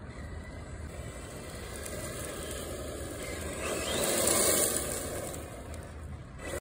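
An ARRMA Senton 4x4 3S BLX brushless RC short-course truck driving fast over loose gravel, its tyres hissing and throwing grit. A brief rising motor whine comes just before it is loudest, about four seconds in, as it passes close.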